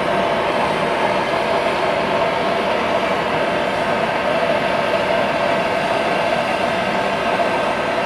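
Handheld gas torch burning with a steady, unbroken hiss as its flame heats the copper refrigerant pipe joints on an air-conditioner compressor for brazing.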